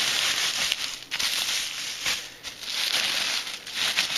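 Bubble wrap and plastic wrapping crinkling and rustling as it is handled and pulled away by hand, unevenly, with short lulls about a second in and around the middle.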